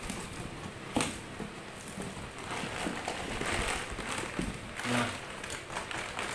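Clear plastic wrapping rustling and crinkling as a wrapped spare part is picked up and handled, with a single knock about a second in.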